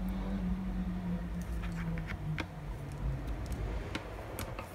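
Pliers gripping and working the twisted wire neck of a plastic-coated wire coat hanger, making scattered small clicks and taps a few times a second, over a steady low background rumble. A faint low hum slowly drops in pitch during the first three seconds.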